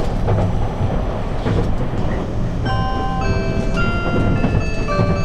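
Steady running rumble of the JR 651-series electric train heard from inside the carriage. About halfway through, the bell-like Hitachi chime melody starts over the public-address speakers, which marks the end of an onboard announcement.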